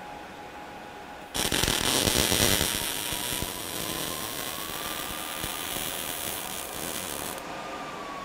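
MIG welding arc struck on steel: a sudden loud crackling hiss about a second and a half in, loudest for the first second or so, then running on for several seconds before cutting off when the trigger is released. A faint steady whine sits underneath throughout.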